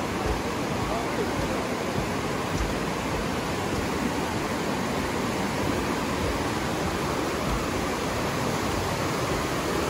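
The Aare River rushing through its narrow rock gorge: a steady, unbroken rush of fast-flowing water.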